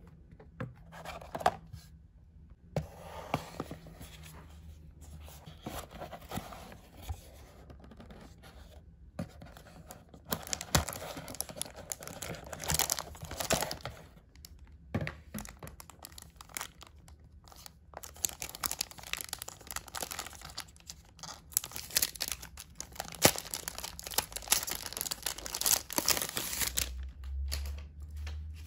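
Cardboard and plastic packaging being handled, rustling and tearing in irregular bursts with sharp clicks as a keyboard is unpacked from its box.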